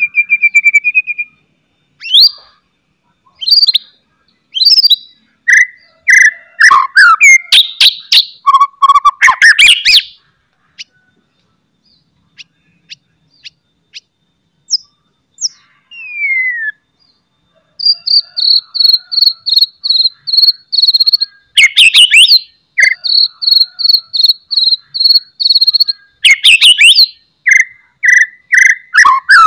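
White-rumped shama (murai batu) singing a varied song of loud whistles and sweeping notes, broken by harsh rattling 'cetrekan' bursts. In the second half it sings long runs of rapid high chips at about four a second. The song falls almost silent for several seconds near the middle.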